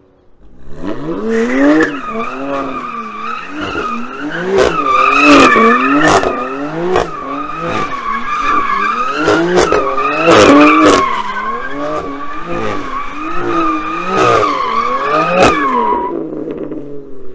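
BMW M3 Competition's twin-turbo straight-six revving up and down over and over while its rear tyres squeal steadily through donuts, with several sharp cracks along the way. The squeal dies away about a second before the end.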